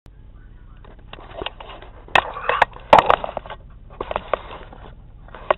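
Rustling and knocking handling noise close to the microphone, in irregular bursts with several sharp clicks, loudest about two to three seconds in, over a low steady hum.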